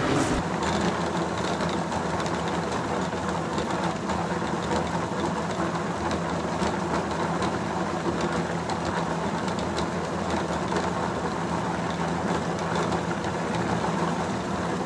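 Small 3 lb Hollander beater running steadily: the electric motor's hum with the beater roll churning and grinding a slurry of harakeke (New Zealand flax) fibre in its tub.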